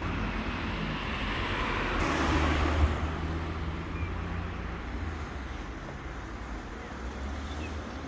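A car passing on the street, its tyre and engine noise swelling to its loudest about two to three seconds in, then fading away, over a steady low rumble of traffic.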